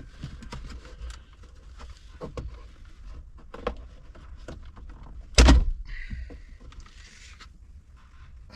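Plastic sunroof trim inside a car being pried loose by hand: small clicks and plastic rattles, with one loud snap about five and a half seconds in as a retaining clip lets go.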